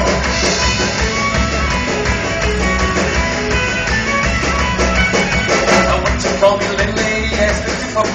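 Live folk-rock band playing an upbeat song, with fiddle, drums, guitar and keyboard, and a singing voice coming and going.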